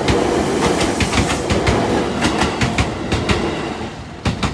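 Fujikyu Fujisan View Express electric train passing close by, its wheels clacking over the rail joints in quick pairs over a steady rumble. A last loud double clack comes near the end as the final bogie clears, and then the sound falls away.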